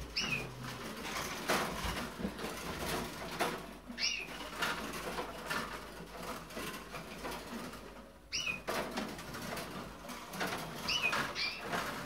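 Caged canaries and other small finches in a breeding room: a steady scatter of small clicks and wing flutters, with short calls that fall in pitch every few seconds.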